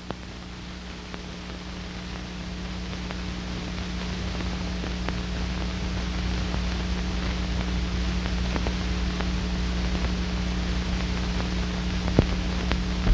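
Steady hiss and mains hum of an old film soundtrack, slowly growing louder, with a few faint scattered clicks.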